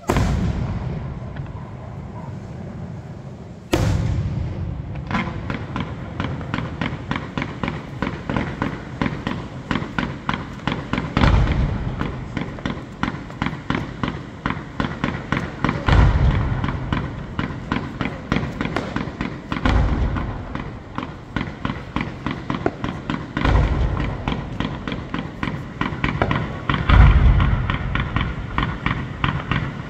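Fireworks display: a shell bursts with a loud bang at the start and another a few seconds in. From about five seconds in comes a rapid, continuous run of pops and crackles, several a second, with deeper booms every few seconds.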